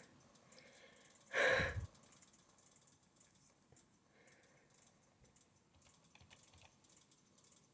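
A short breath from a person in a sneezing fit, about a second and a half in, then faint tapping on a computer keyboard.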